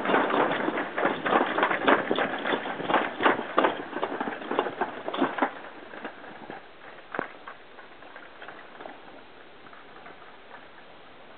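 Toboggan sled running down a stainless-steel slide track, rattling and clattering in quick knocks that thin out after about five seconds and fade to a faint hiss with an odd knock.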